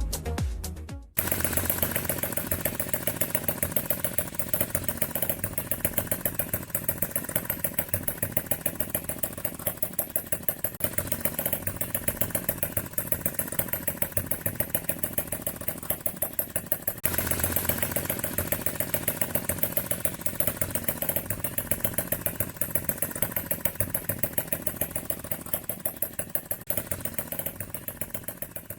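A Retrol HM-01 model hit-and-miss engine, a 7cc single-cylinder four-stroke, running with a quick, even beat of firing strokes and a light mechanical clatter. It starts about a second in as the music cuts off, and fades near the end.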